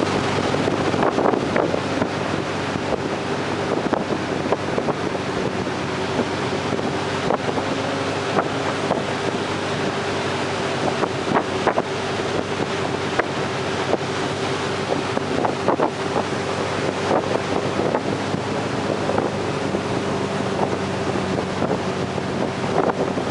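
Tow boat's engine running steadily at speed, a constant drone, under heavy wind buffeting on the microphone and the rush of the boat's wake.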